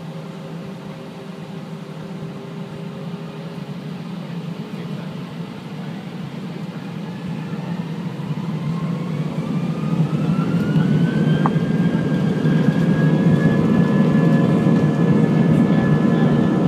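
Airbus A320 turbofan engines heard from the cabin over the wing, spooling up to takeoff power: a low hum, then a whine that climbs in pitch for several seconds before holding steady as the rumble grows louder.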